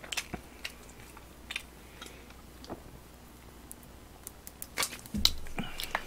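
Close-miked eating sounds: soft chewing with scattered small mouth clicks, and a soft thump about five seconds in.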